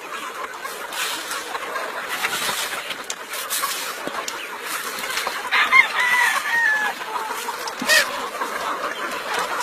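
Chickens clucking, with a rooster crowing once a little past halfway, the loudest sound here, and a sharp click near the end.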